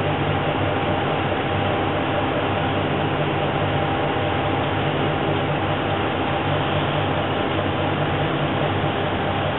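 Diesel engine of a Kanto Railway KiHa 2100-series railcar idling steadily at a standstill, a low even hum with a faint steady higher tone.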